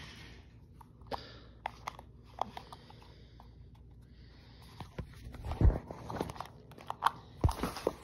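Handling noise from a phone being picked up and moved: scattered light clicks and taps, then from about five seconds in a run of louder thumps and rustling.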